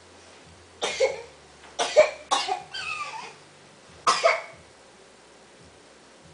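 A person coughing, four coughs over about three and a half seconds.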